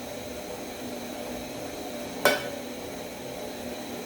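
Githeri cooking in a pot with a steady hiss, and one sharp clink of a utensil against the pot a little over two seconds in.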